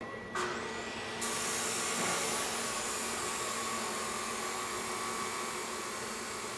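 Abrasive chop saw starting suddenly, then cutting into high-carbon steel rod (sucker rod) from about a second in with a steady grinding whine and hiss.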